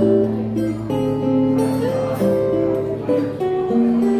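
Solo acoustic guitar played fingerstyle: a melody of plucked notes over held bass notes.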